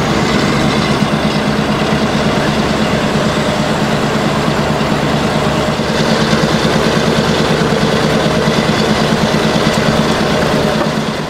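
Scania R500's V8 diesel engine with open exhaust pipes, heard from inside the cab while driving, running steadily under way. It gets a little louder about six seconds in and fades out at the very end.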